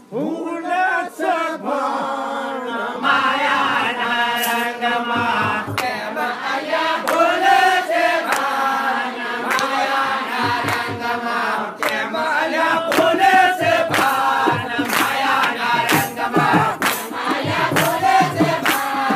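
Gujarati devotional bhajan: voices singing together in a chant-like melody, with sharp percussion strikes keeping a regular beat.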